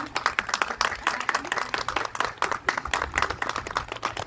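A small group of people clapping together, a dense, irregular patter of hand claps.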